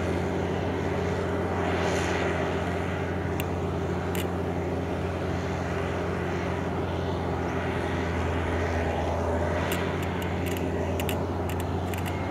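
Diesel engine of a tracked combine-harvester chassis fitted as a rotary tiller, running steadily under load as it churns through flooded paddy mud. A few sharp clicks a few seconds in, and more of them near the end.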